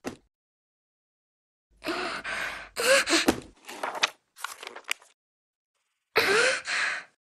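A cartoon boy's wordless voice sounds, breathy and gliding in pitch: a run of short sounds from about two to five seconds in, then one more near the end.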